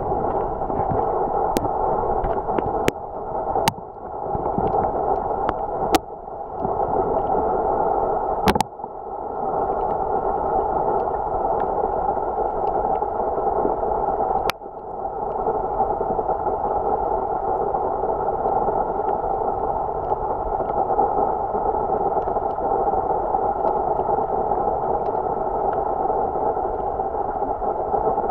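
Underwater sound picked up by a submerged camera: a steady, muffled water rush, broken in the first fifteen seconds by a handful of sharp clicks, most followed by a brief drop in level.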